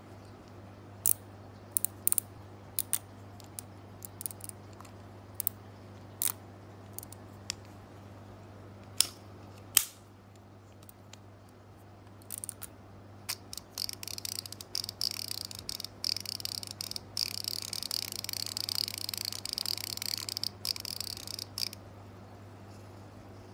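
Shimano Curado K baitcasting reel fitted with an aftermarket drag clicker: separate sharp clicks as the star drag is turned, then from about thirteen seconds a fast, dense clicking with a high hiss as the spool turns, which lasts until near the end.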